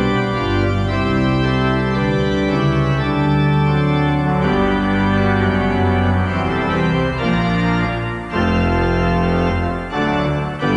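Instrumental television station closedown music: slow held chords that change every second or so, with two brief breaks about eight and ten seconds in.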